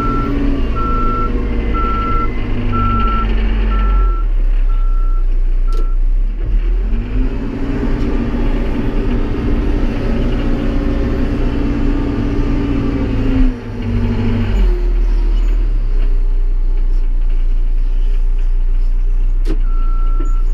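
Tractor backhoe engine running under load, speeding up for several seconds in the middle and then dropping back to a lower speed as the loader works. A steady reverse-alarm beeping sounds over it at the start and returns near the end as the machine backs up.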